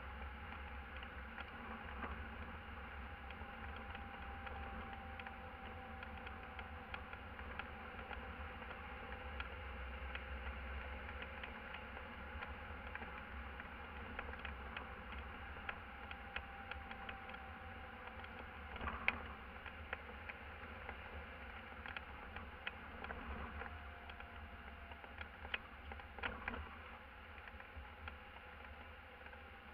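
Muffled engine and road noise inside a van's cab while driving: a steady low drone with faint humming tones that drift slowly in pitch, and scattered light clicks and rattles, a few of them sharper.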